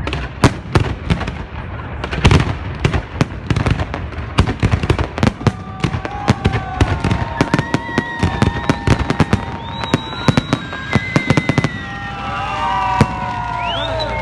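Fireworks salute going off: rapid, dense volleys of sharp bangs and crackles. From about halfway, long whistling tones join in, and the bangs stop about two seconds before the end, leaving the whistling.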